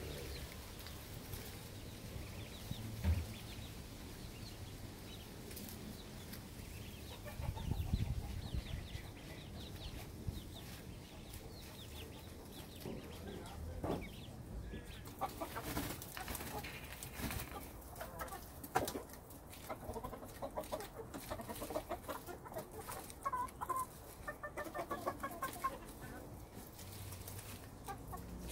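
Chickens clucking: a run of short, low calls that grows busier in the second half, with a few scattered light taps.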